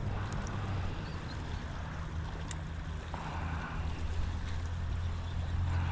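Steady outdoor background of flowing canal water and wind on the microphone, with a low hum underneath and a couple of faint ticks.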